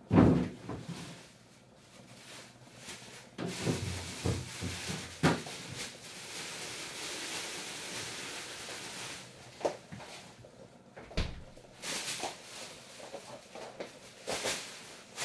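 Kitchen cupboard doors and drawers being opened and shut while someone rummages. A loud thump comes right at the start, then a few knocks, a stretch of steady hiss in the middle, and scattered sharp clicks near the end.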